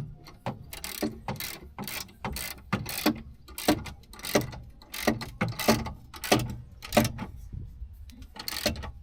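Hand ratchet wrench clicking as bolts are tightened, in short bursts about twice a second with a brief pause before a last burst near the end.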